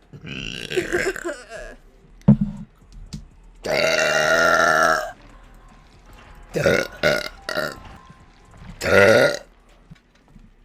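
A woman burping repeatedly, about five burps with short pauses between them. The longest is a drawn-out one that starts about three and a half seconds in and lasts about a second and a half.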